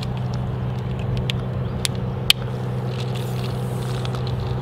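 A steady low motor hum, with a few sharp clicks between about one and two and a half seconds in from the sections of a baiting pole being handled and clipped together.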